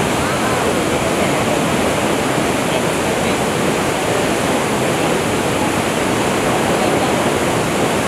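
Steady rushing of a waterfall and the shallow, fast river water flowing below it.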